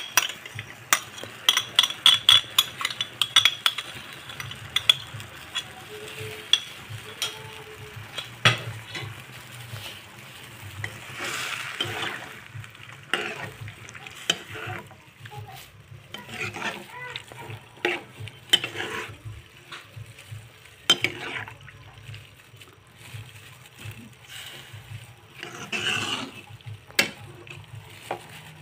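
A cooking utensil stirring vegetables and coconut milk in a wok on the stove, with sharp clicks of the utensil against the pan, many in the first few seconds and fewer after, and brief swishes of the stirred food.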